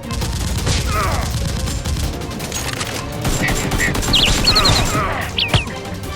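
Rapid gunfire in a dense fusillade of shots, with one sharp single shot near the end and high chirping calls over it about halfway through.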